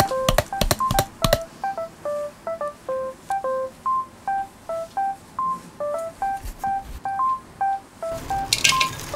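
Background music: a simple melody of short, clear single notes at a steady pace, with a run of sharp percussive clicks in the first second and a half.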